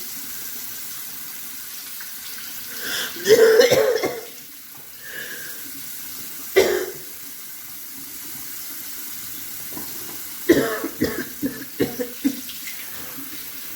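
A woman's staged coughing for a fake coughing-up-blood prank, in bouts: a loud fit about three seconds in, a single cough a few seconds later, and a run of short coughs near the end, over a steady hiss.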